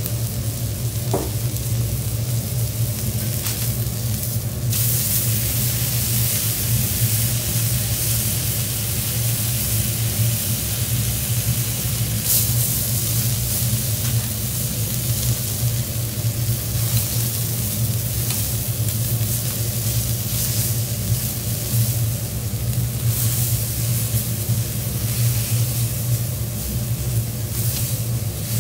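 Tenderloin steak and mushrooms sizzling on a hot teppanyaki steel griddle. The sizzle grows much louder about five seconds in and stays strong, over a steady low hum.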